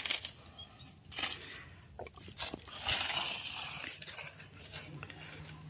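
Plastic toy trucks pushed and scraped through sand: gritty scraping in spells, loudest about three seconds in, with a few light plastic knocks.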